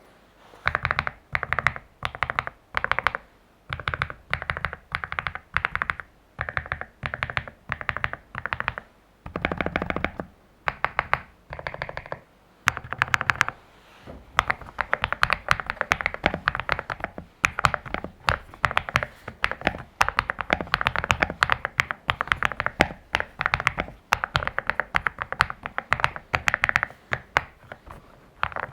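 Zuoya GMK81 mechanical keyboard with hand-lubed Akko Cream Yellow V3 linear switches, Durock V2 stabilizers and a tape mod, being typed on. Short clusters of keystrokes with brief pauses for about the first half, then steady fast typing.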